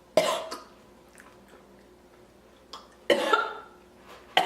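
A woman coughing three times: a short cough about a quarter second in, another about three seconds in, and a third starting just before the end.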